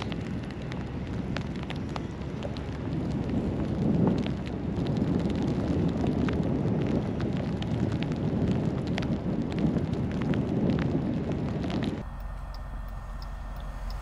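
Blizzard wind buffeting the microphone: a gusty low noise, stronger from about four seconds in, with scattered small clicks and crackles. About twelve seconds in it cuts abruptly to a quieter, steady low noise.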